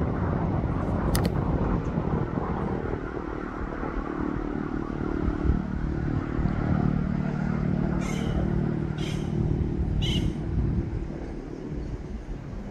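A vehicle's engine running steadily, with a low hum under road noise that eases off near the end. Three short high chirps come about a second apart shortly before that.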